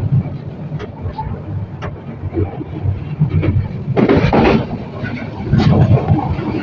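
Passenger train running, a steady low rumble with scattered clicks and rattles, and a louder rush of noise about four seconds in.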